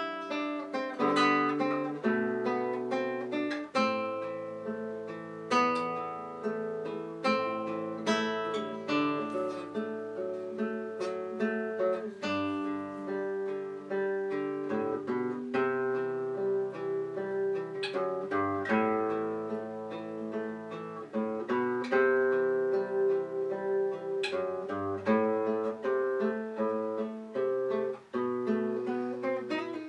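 Classical nylon-string guitar played fingerstyle as a solo etude: a steady flow of plucked, arpeggiated notes ringing over held bass notes.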